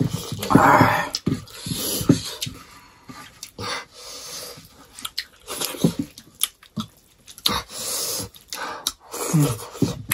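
Close-miked eating of rice and pork curry by hand: wet chewing and frequent lip smacks, with a longer slurping sound about half a second in.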